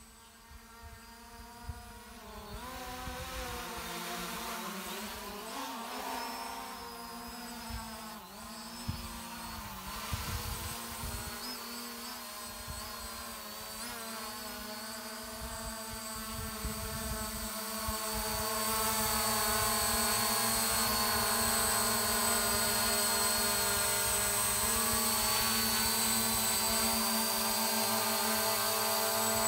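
ZLRC SG906 Pro 2 quadcopter's four propellers and motors running with a multi-toned whine whose pitch wavers as the drone manoeuvres. About two-thirds in it grows louder and steadier as the drone comes close and hovers.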